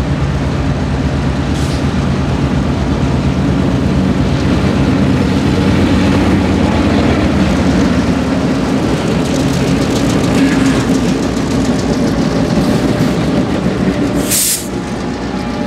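A diesel freight train passing at close range: the locomotive consist led by an EMD GP38-2 runs by with its engines humming, then covered hopper cars roll past with a steady rumble of wheels on rail. A short hiss sounds near the end.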